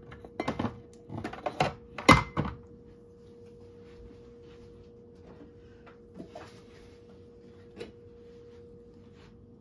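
Bottles being handled on a kitchen counter: a quick run of knocks and clicks, the loudest about two seconds in, then only a steady hum with a couple of faint ticks.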